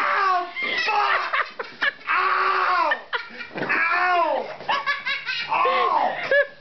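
People laughing hard, in a long run of repeated, falling 'ha' bursts with short breaks for breath.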